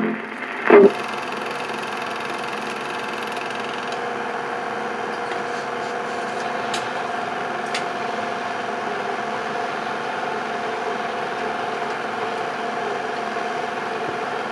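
Super 8 film projector running steadily on blank leader after the soundtrack music has ended, a steady mechanical whir with a faint hum. About a second in there is a short, loud sound that falls quickly in pitch.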